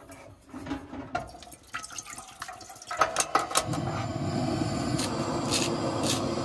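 Water poured into a cooking pot. About three seconds in, a Coleman propane camp stove burner is lit and runs with a steady rushing hiss. Near the end come two short hisses of cooking spray.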